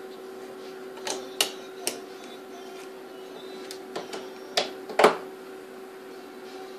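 About six sharp clicks and knocks from a Mercedes instrument-cluster circuit board being handled and set on the desk, the loudest about five seconds in, over a steady hum.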